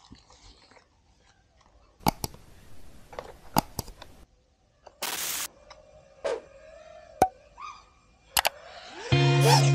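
Several sharp mouse clicks and a short whoosh from an on-screen subscribe and like button animation, then background music starts near the end.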